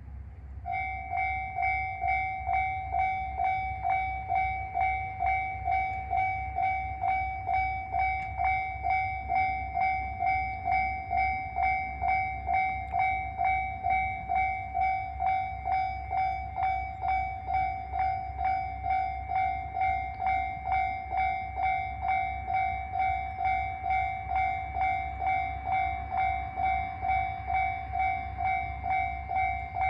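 Japanese railway level-crossing warning bell starting up about a second in, then ringing steadily as a rapid repeating electronic ding, about two strikes a second. The crossing is warning of an approaching train.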